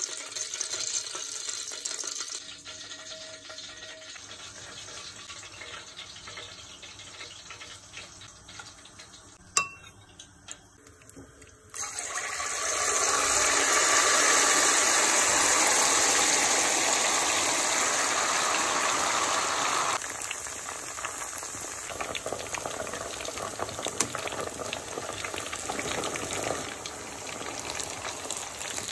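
Hot used cooking oil sizzling and bubbling in a pot as it is cleaned with water and cornstarch. The sizzle grows much louder and fuller partway through, holds for about eight seconds, then settles back to a steadier sizzle. A single sharp click comes just before the loud stretch.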